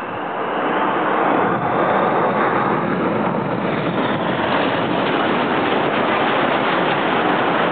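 Display jets flying overhead: a loud rushing jet noise that swells over the first second or so and then holds steady.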